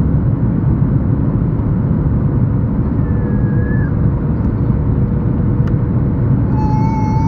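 Steady, loud cabin noise inside a Boeing 737-8 MAX airliner in flight: the deep rumble of its CFM LEAP-1B engines and the rush of air over the fuselage. A faint steady tone runs through the middle, and a brief high-pitched tone sounds near the end.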